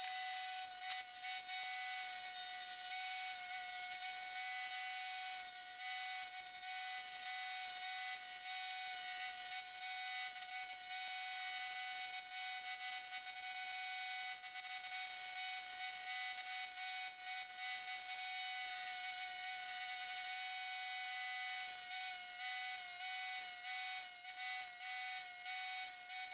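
Power grinder running steadily with a high whine and hiss, grinding a forged steel key head and shank into shape.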